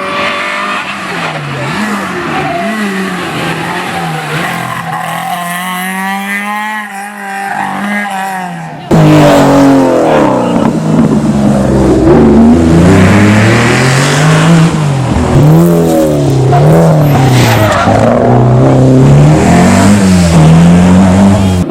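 Historic rally car engines revving hard, the pitch climbing and dropping again and again through gear changes and lifts. About nine seconds in, the sound jumps abruptly to a louder, closer car doing the same.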